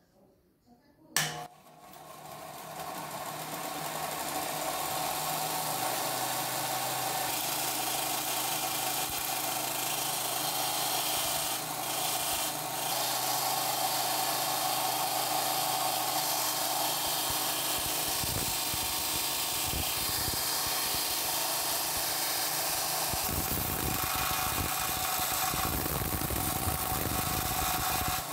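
Combination bench grinder and belt sander switched on with a click about a second in, its motor spinning up over a few seconds to a steady whir. A rusty steel open-end wrench is then pressed against the running sanding belt, grinding off rust and adding a rough grinding noise that grows louder in the last few seconds.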